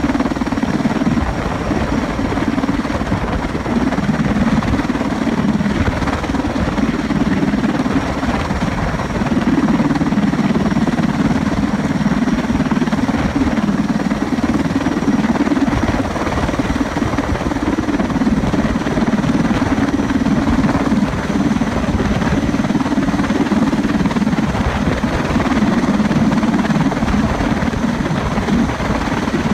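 Sikorsky S-64 Skycrane-type heavy-lift helicopter hovering low with a slung load, its rotor giving a steady dense thudding that swells and eases every few seconds, with a faint high turbine whine above it.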